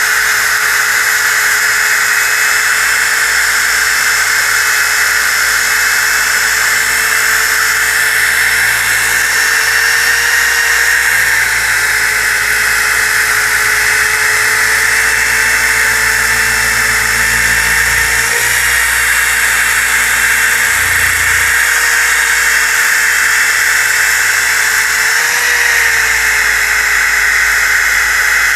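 DeWalt DWE6401DS disc sander running at full speed with an 80-grit disc on a glued-up pine panel: a steady high motor whine over the rasp of abrasive on wood, the pitch wavering slightly a couple of times.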